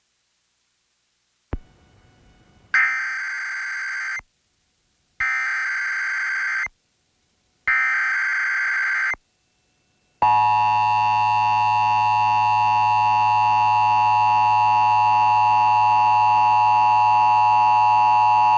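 Emergency Alert System tones opening a Required Monthly Test. After a click come three short bursts of rasping SAME header data tones, each about a second and a half with a second between them. Then the steady two-tone EAS attention signal (853 and 960 Hz) sounds for about eight seconds.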